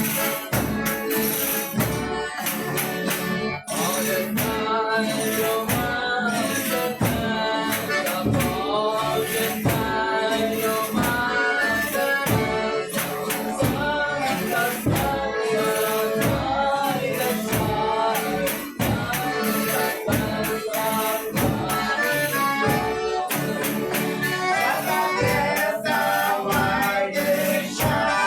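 Folia de Reis group singing together, with a tambourine shaken and struck in a steady rhythm beneath the voices.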